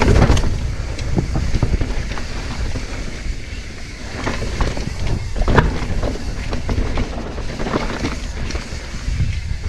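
Mountain bike riding fast down a rocky dirt trail: wind rumbling on the microphone over tyre noise and the bike rattling and knocking over rocks, with sharper knocks near the start and a little past halfway.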